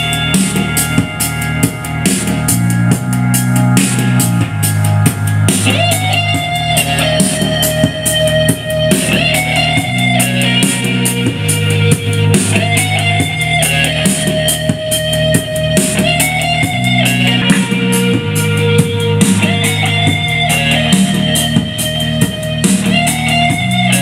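Rock music with a drum kit, bass and guitar keeping a steady beat.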